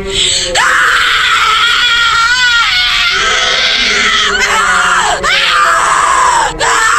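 Shrill, high-pitched screaming: about four long screams, each swooping up at the start and falling away at the end, with brief breaks between them.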